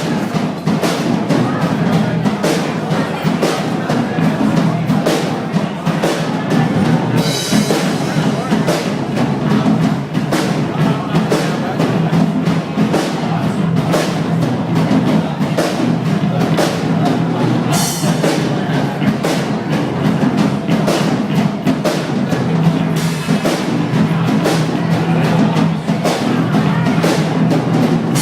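Band playing an instrumental passage, a drum kit keeping a steady beat over a sustained bass line, with cymbal crashes about seven and eighteen seconds in.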